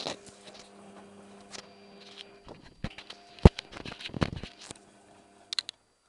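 Tricity Bendix AW1053W washing machine tumbling a wash: a steady motor hum under sloshing, with irregular clatter and knocks, the sharpest about three and a half seconds in. The hum stops about five seconds in, a pause between turns of the drum.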